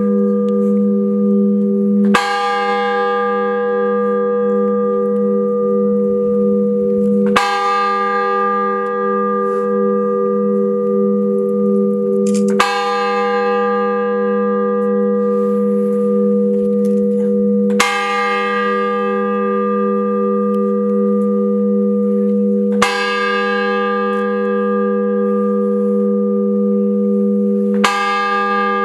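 A single large bell tolling slowly, struck six times about five seconds apart, each stroke ringing on with a long low hum into the next: a mourning knell.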